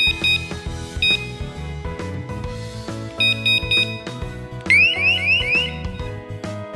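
Electronic alarm sounding short, high two-tone beeps: a pair at the start, a single one about a second in, and a quick run of several past the three-second mark. Then come four rapid rising siren whoops, the loudest part, all over steady background music.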